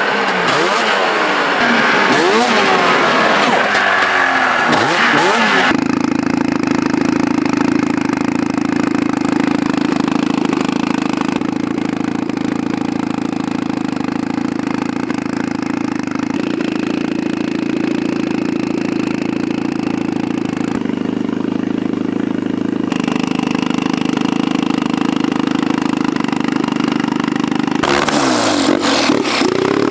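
Racing snowmobile engines revving and rising and falling in pitch as sleds pass. Then, after a sudden change, one engine runs at a steady, unchanging pitch for most of the time. Near the end the revving and passing starts again.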